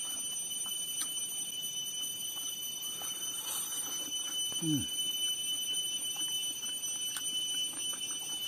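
Soft chewing and lip-smacking clicks of a man eating chicken and rice with his hand, over a steady high-pitched insect drone. A short low "mm" falls in pitch about halfway through.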